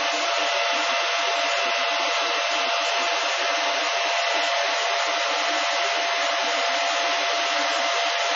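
Cooling fans of a Silver Fish 28MH Litecoin ASIC miner running flat out under mining load: a steady, loud rushing noise with a faint steady whine of a few tones in it.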